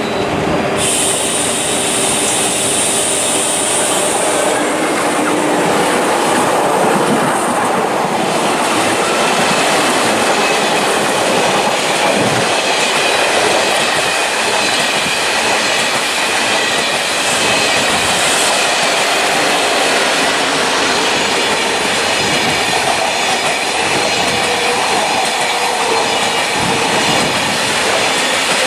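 Train running past on the track: a steady, loud rolling noise of wheels on rail throughout, with a high hiss over the first few seconds.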